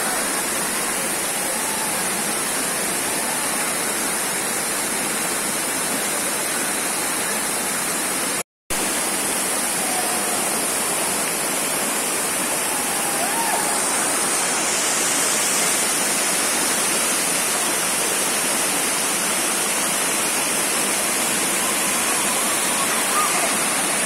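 Waterfall pouring down a rock face into a rocky pool: a steady rush of falling water, broken by a split-second silence about eight seconds in.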